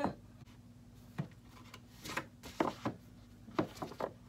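Books being slid and pushed into place on a bookshelf: a series of short scrapes and light knocks of book covers rubbing against each other and the shelf.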